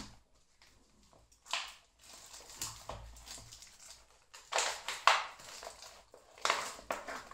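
Irregular rustling and crinkling of handled plastic packaging, in several bursts, the loudest about five seconds in.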